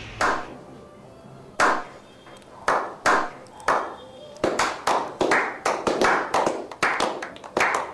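A small group of people slow-clapping: single claps about a second apart, quickening about halfway into faster, overlapping applause.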